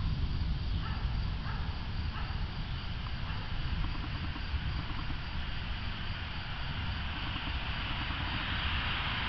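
Storm wind gusting through tall trees, a steady rush of leaves with the wind buffeting the microphone in a low, uneven rumble; the rush of leaves grows louder near the end. Three faint chirps sound within the first two seconds.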